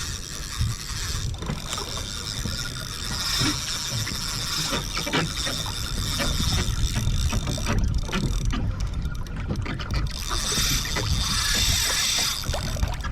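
Spinning fishing reel whirring in stretches while a hooked fish is played from a kayak, with scattered clicks. A steady low rumble of wind and water runs underneath.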